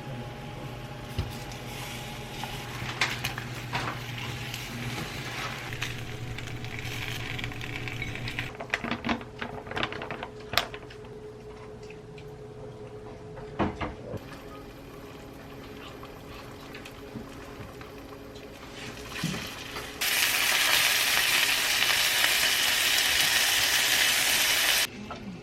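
Kitchen cooking sounds: utensils clinking and knocking against bowls and pans, with a faint steady hum. About 20 seconds in, a loud even hiss starts suddenly and cuts off about five seconds later.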